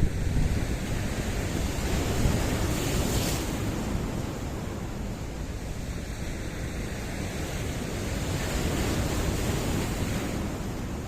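Sea waves breaking and washing against rocks in a continuous rushing surf. It swells a little about two seconds in and again in the second half.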